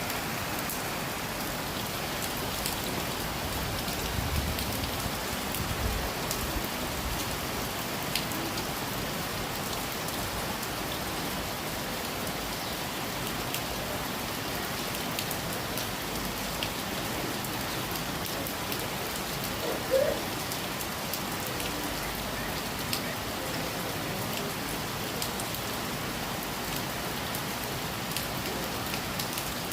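Steady rain falling, a constant hiss with individual drops ticking on a surface. One brief, louder sound stands out about two-thirds of the way through.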